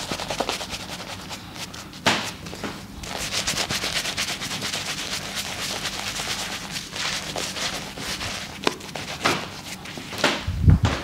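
A hand rubbing and massaging thick shaving lather into a full beard: fast, crackly, wet rubbing strokes, with a low thump near the end.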